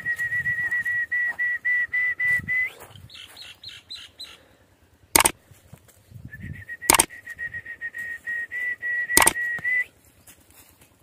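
A bird trilling on one high, steady pitch for about three seconds, then again for about three and a half seconds later. Three sharp clicks fall in between and during the second trill.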